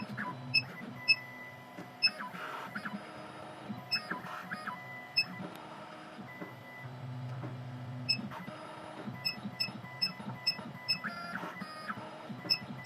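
CNC key cutting machine decoding a key: its stepper motors hum and whine, changing pitch as the probe moves, with sharp short ticks repeating irregularly and coming faster near the end.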